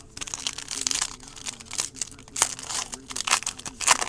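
Foil wrapper of a trading-card pack being torn open and crinkled by hand: a dense run of sharp crackles, with a few louder crunches in the second half.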